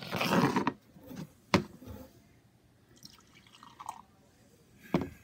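Beer poured from a glass bottle into a glass tumbler: a short splash at first, then light dripping. A sharp clink about one and a half seconds in and a knock near the end.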